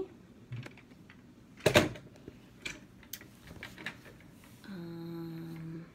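Handling of a picture book, with a single sharp knock about two seconds in and a few faint clicks. Near the end comes a woman's steady held 'mmm' of hesitation, lasting about a second.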